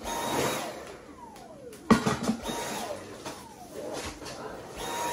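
Cordless stick vacuum's motor whirring in short runs, each winding down in a falling whine, a few times over. There is a sharp knock about two seconds in.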